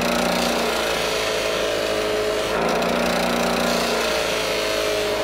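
Bench buffer running steadily while a hot metal block is held against its spinning cloth buffing wheel to polish it, a continuous motor whir with the hiss of the block rubbing on the wheel. The hum changes tone a few times as the block is worked against the wheel.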